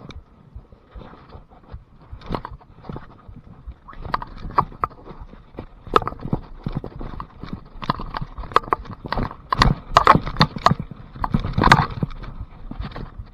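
Mountain bike clattering over a rough, muddy trail: a string of irregular knocks and rattles, getting louder and busier in the second half.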